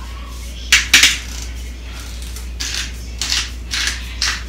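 Two sharp clicks about a second in, then a run of short scratchy rattles about two a second as seasoning is dispensed from a hand-held container onto raw chicken in a baking dish.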